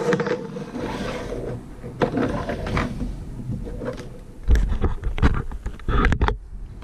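Plastic dolls and toy pieces being handled and moved about, with rustling scrapes and a few short knocks around the middle and near the end.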